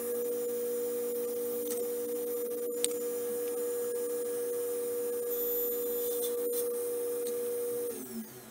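Table saw running with a steady whine, then switched off near the end, its pitch sinking as the blade spins down.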